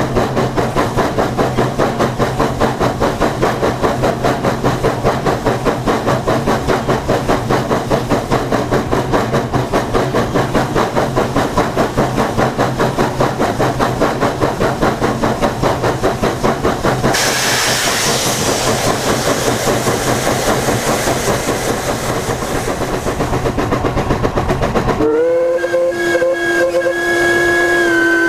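Steam locomotive 463, a narrow-gauge K-27 2-8-2, working along with a fast, even exhaust beat of about four chuffs a second. About two-thirds of the way in a loud steam hiss joins the beat, and near the end the locomotive's steam whistle sounds in one long blast.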